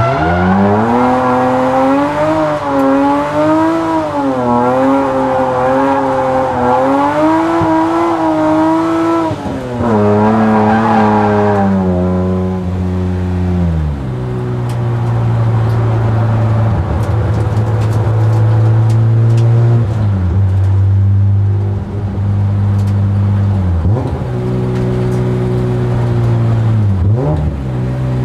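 BMW E34 M5's 3.6-litre S38 straight-six at high revs, the note swinging up and down for about the first ten seconds, then falling away and running steadier at lower revs, with a few short throttle blips near the end.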